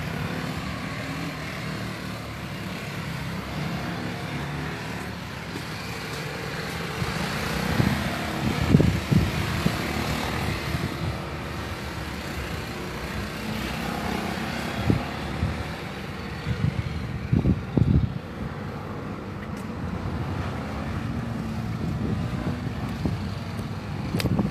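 BMW G 310 GS motorcycles, 313 cc single-cylinder engines, running laps around a track, the engine sound swelling as bikes come past. A few low thumps hit the microphone.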